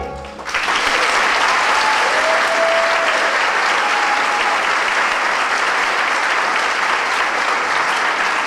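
Theatre audience applauding loudly and steadily at the end of a musical number. The clapping breaks out about half a second in, as the final sung chord cuts off.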